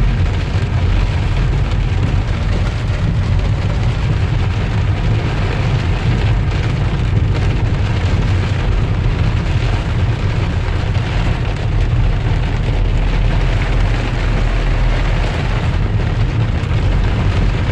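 Heavy rain pouring on a moving car, mixed with a steady deep rumble of road and tyre noise, heard from inside the cabin.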